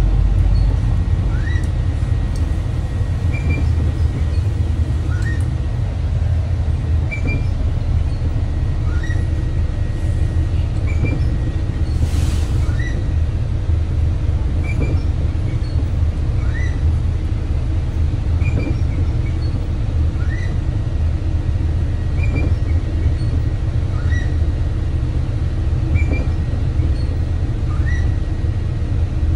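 Steady low rumble of a vehicle running, with a short rising chirp repeating about every two seconds.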